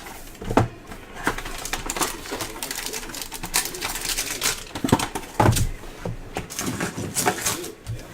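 Trading-card boxes and packs being opened and handled: irregular crinkling, rustling and sharp clicks, with a couple of heavier knocks about five seconds in.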